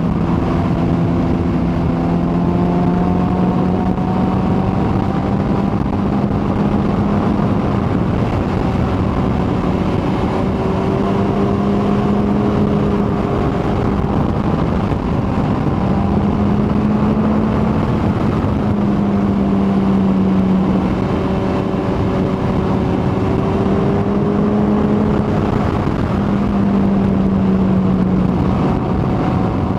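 Kawasaki ZX-14R inline-four engine running at a steady cruise, its pitch drifting gently up and down with small changes of throttle, over a heavy, even rush of wind and road noise.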